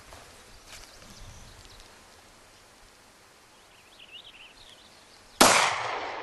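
A single gunshot near the end, sudden and loud, followed by about a second of echo trailing off.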